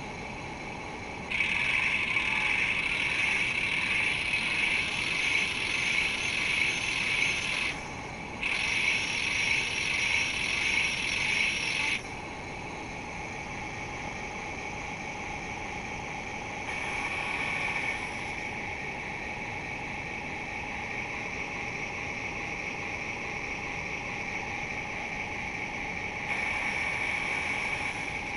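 Small electric drive motor and gears of a model truck whining. There are two long runs of several seconds in the first half, then two shorter, quieter swells later, over a steady electrical hum.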